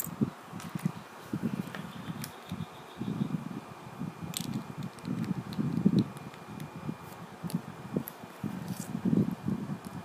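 Fingers handling small plastic LEGO bricks close to the microphone: irregular rubbing and muffled knocks, with a few sharp plastic clicks as pieces are pressed together.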